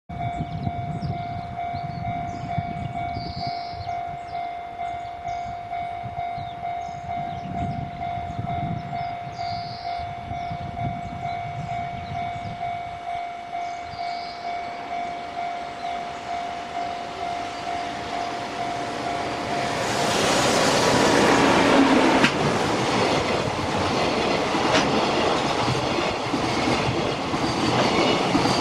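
Japanese level-crossing warning bell ringing in a steady, fast repeating beat. About 20 seconds in, a freight train arrives and passes with a loud rush and clatter of wheels over the rails.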